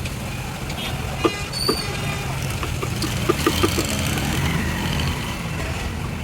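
Steady low engine hum, with a few short sharp knocks: two about a second in, then a quick run of four or five near the middle.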